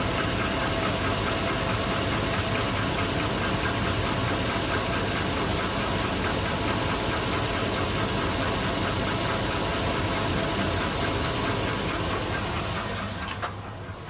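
2002 Chevy Avalanche's 5.3-litre Vortec V8 idling warm with a steady, rapid knock, which the owner wonders is a rod bearing; oil pressure is good. The sound fades near the end.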